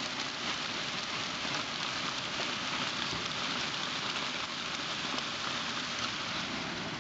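Pea-size hail falling hard on a concrete driveway: a dense, steady patter of countless small impacts.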